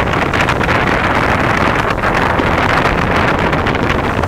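Steady loud rushing noise of surf washing on the sand, mixed with wind on the microphone.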